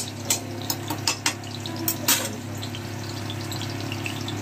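Cumin seeds and green chillies spluttering in hot oil in a wok for a dal tadka: several sharp pops in the first two seconds, then a steady sizzle, over a low steady hum.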